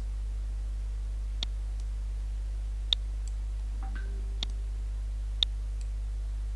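Computer mouse clicking: four short, sharp clicks, one to one and a half seconds apart, over a steady low hum.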